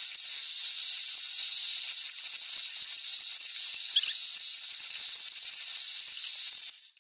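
Steady high-pitched hiss that cuts off suddenly near the end.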